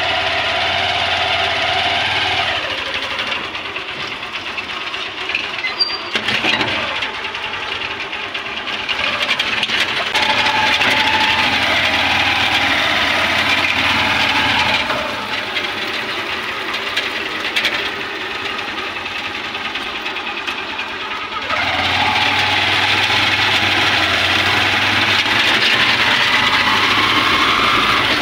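Honda motorcycle engine pulling a sidecar, running under way, its sound growing louder and quieter in turns as it is ridden.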